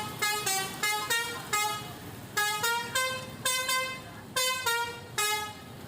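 Indonesian 'telolet' musical bus horn playing a tune: a run of short horn notes that jump in pitch, in quick phrases with brief pauses between.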